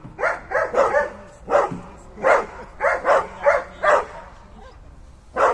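A dog barking repeatedly: about ten short, loud barks in uneven groups, then a pause and one last bark near the end.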